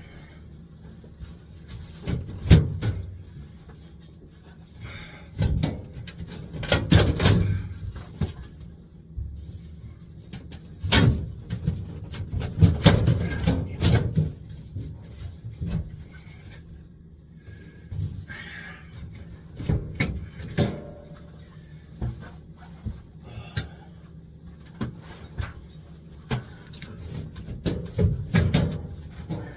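Sheet-metal ductwork being forced and fastened into place on a furnace: irregular knocks, clunks and rattles of the metal, with several sharp bangs.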